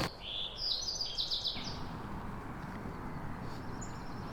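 A bird singing a quick run of high chirping notes for about a second and a half, then faint outdoor background noise.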